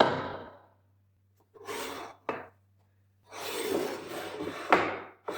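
Wood rubbing and scraping against wood in a few short strokes, with a sharp click and a knock in between.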